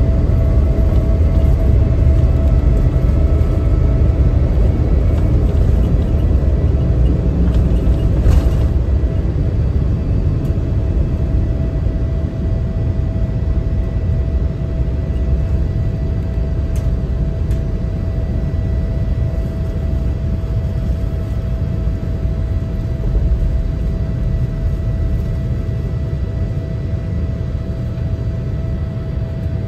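Boeing 787-9 cabin noise during take-off, heard inside the cabin: a steady jet-engine drone with a whine and a heavy low rumble. The rumble eases somewhat after about ten seconds.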